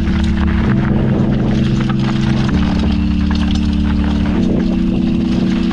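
Background music of held chords over a steady bass line, changing chord every second or two, with short clicks and rattles from the ride underneath.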